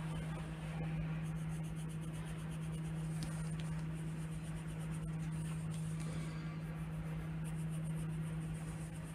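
Black pencil scratching on paper as it traces a drawing, in faint stretches of strokes, over a steady low hum.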